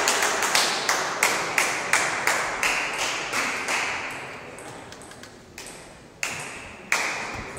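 Sharp, evenly spaced taps about three a second, fading away over the first four seconds. Then two sharp table tennis ball hits, paddle on celluloid ball, come about six and seven seconds in, as a rally starts.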